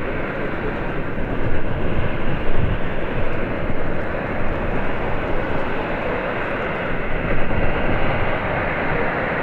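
Airbus A350's Rolls-Royce Trent XWB jet engines running, a steady rush of noise, with wind gusting on the microphone.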